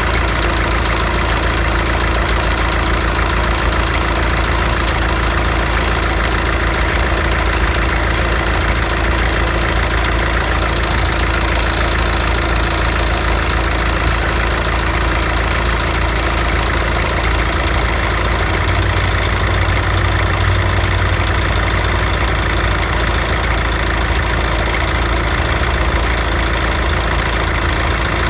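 SsangYong Actyon engine idling steadily, with an extraneous noise from the alternator belt drive: the sign of a failing alternator overrunning clutch pulley, first taken for a worn belt tensioner pulley.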